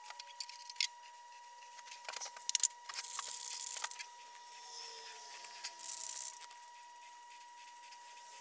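Aerosol spray-paint can hissing in two bursts: one about a second long, about three seconds in, and a shorter one about two seconds later. Light clicks and handling knocks come before them.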